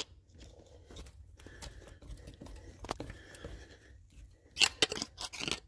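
Screwdriver prying between the transmission and the Northstar V8 engine, metal on metal: scattered light clicks and scrapes, then a cluster of sharp metallic scrapes and clinks near the end. This is the transmission being worked loose off its locating dowels.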